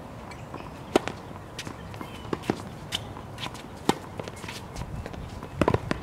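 Tennis ball being hit with a racket and bouncing on a hard court: a string of short, sharp pops, a few single ones spread through, the loudest about a second in, and a quick run of four or five near the end.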